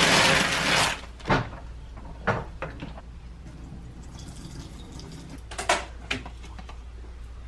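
Water running from a tap for about a second, then shut off, followed by a few short knocks and clatters of things being handled.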